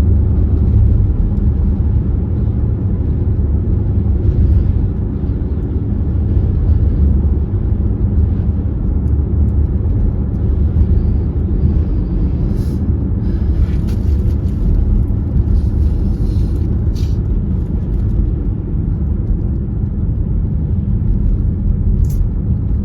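Steady low rumble inside a moving car's cabin: engine and road noise mixed with strong, gusty wind buffeting the car.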